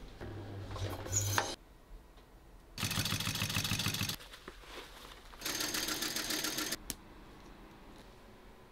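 Mitsubishi Electric industrial sewing machine stitching leather in two bursts of about a second and a half each, with rapid, closely spaced needle strokes. A shorter machine hum comes near the start.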